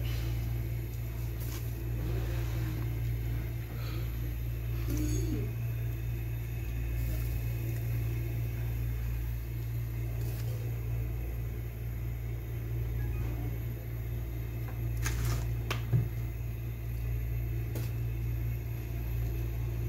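Steady low machine hum, with a few light clicks and a short knock about sixteen seconds in.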